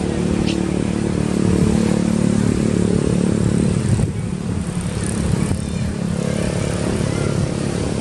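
An engine running steadily, its hum changing slightly about four seconds in.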